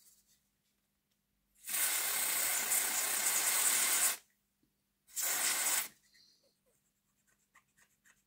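Aerosol contact cleaner spraying in two bursts, a long one of about two and a half seconds and then a short one, cleaning grime off a model locomotive's motor parts. A few faint small clicks follow near the end.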